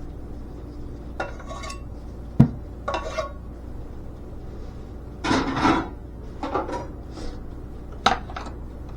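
Frying pan and metal cooking utensils clattering and scraping: a string of separate clinks and knocks, the sharpest about two and a half seconds in, with a longer scrape a little past halfway.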